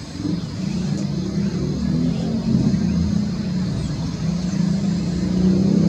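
Boeing 737 MAX 8's CFM LEAP-1B turbofans running at taxi power: a steady low rumble with a faint high whine over it.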